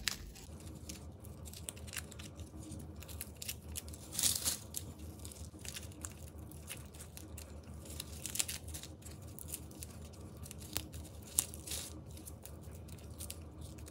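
Fingers peeling dry, papery skins off garlic cloves: irregular light crackling and rustling, with a louder crackle about four seconds in. The garlic has been warmed briefly in a microwave, which makes the skins come away easily.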